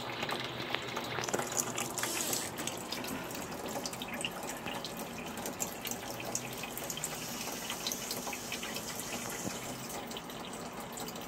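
Kitchen tap running a thin stream into a stainless-steel sink: a steady trickle and splash, with many small irregular drip ticks.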